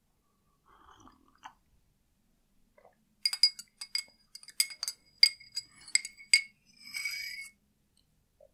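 Metal spoon stirring a drink in a glass tumbler, clinking against the glass about a dozen times in quick, irregular succession over some three seconds, each clink ringing briefly at the glass's pitch. It ends with a short ringing scrape of spoon on glass.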